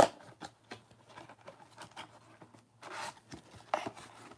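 Gloved hands handling and opening a cardboard Donruss Optic trading-card box: scattered clicks and scrapes of the cardboard and its flaps, with a sharp click at the start and a rustling scrape about three seconds in.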